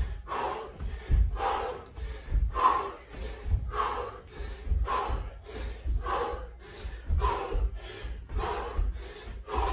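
A man breathing hard during jump lunges, with a sharp exhale at each jump, about once a second. Each exhale comes with a dull thud as his feet land on a carpeted floor.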